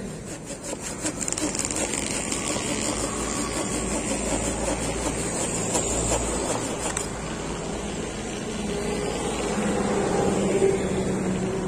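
Hand pruning saw cutting through a sengon branch in quick rasping strokes, stopping about seven seconds in as the piece comes free. A low steady rumble runs underneath.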